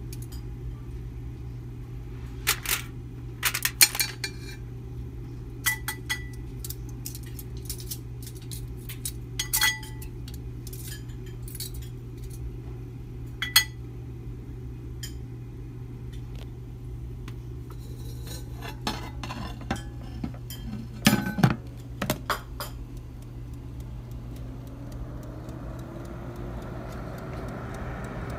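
Metal tongs clicking and clinking against a foil-lined pan as sausages are handled, in scattered clusters over a steady low hum. Near the end a rising whine sets in.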